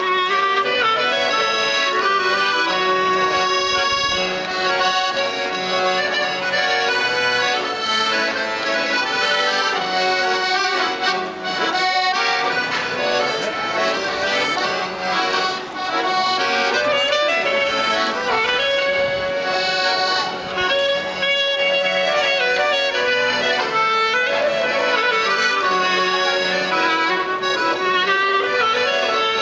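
Piano accordion and clarinet playing a melody together.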